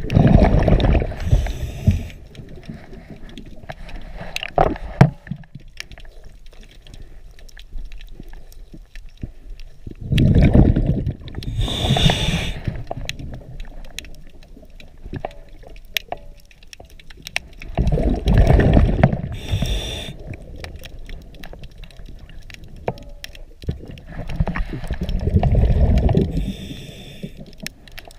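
A diver breathing underwater through a regulator, four breaths about eight seconds apart: each a loud bubbling rush of exhaled air, with a short hiss of the regulator. Faint scattered clicks sound between breaths.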